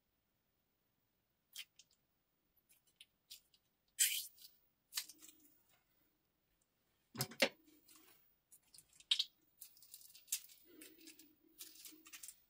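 Small plastic zip-lock bag crinkling and clicking in the hand in scattered bursts. Near the end it mixes with soft squelches as thick slime is squeezed out of the bag.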